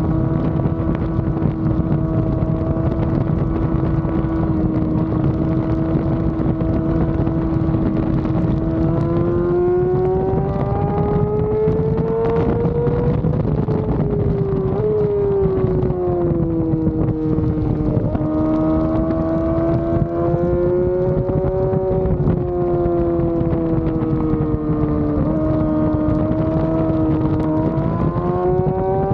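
Yamaha R6 inline-four sport-bike engine at high revs, heard from on board the bike under race pace: held at a steady pitch through a corner, then rising as it accelerates down the straight, falling in steps as it slows, and rising again near the end. Wind noise on the microphone runs underneath.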